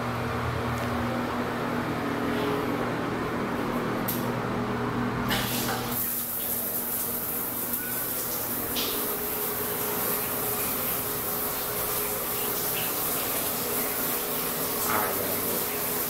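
A steady low hum, then from about five seconds in the even hiss of running water spraying steadily, as from a shower or tap.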